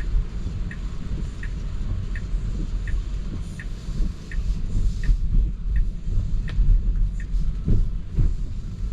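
Tesla turn-signal indicator ticking steadily, about once every 0.7 seconds, over a low road rumble inside the car's cabin; the ticking stops about seven seconds in as the turn signal switches off.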